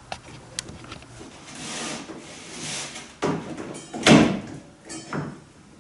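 Wooden knocks and a scraping slide as a cedar hull plank is handled and shifted against the dinghy's hull during fitting, with a few sharp knocks, the loudest about four seconds in.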